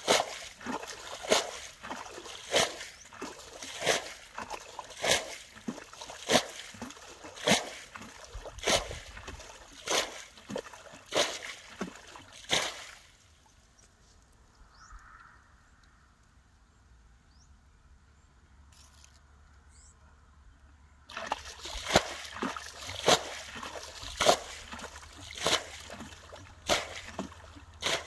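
Water being bailed from a shallow muddy puddle with a plastic bucket: a scoop and splash about every second and a quarter. The bailing stops for several seconds midway, then starts again at the same pace.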